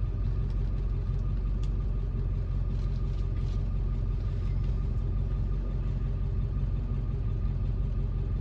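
Steady low engine hum, like an idling car, with a few faint clicks.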